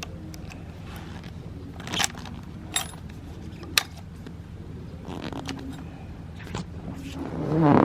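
Honda XL250 Degree single-cylinder four-stroke engine idling steadily, with a few sharp metallic clicks and jangles over it and a louder swell of sound just before the end.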